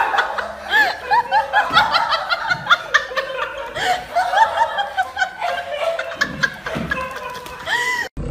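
A person laughing in quick, high-pitched giggling bursts, several short rising-and-falling squeals a second, with light clicks and taps under it. The laughter cuts off abruptly near the end.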